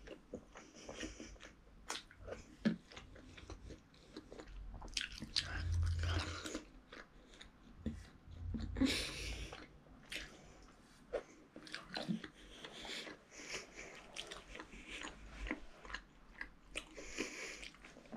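A person chewing food close to the microphone, with scattered small clicks and a couple of louder noisy bursts about five and nine seconds in, while eating rice and chicken curry by hand.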